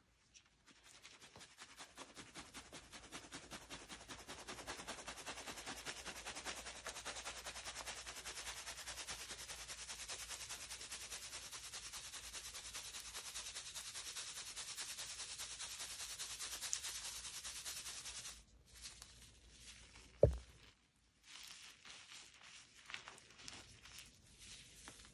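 Fine metal mesh strainer shaken rapidly with dyed gym chalk inside, a fast, even, scratchy sifting rattle as the powder falls through, stopping about three-quarters of the way in. A single dull thump follows, then soft irregular crunches of chalk crumbled in the hand.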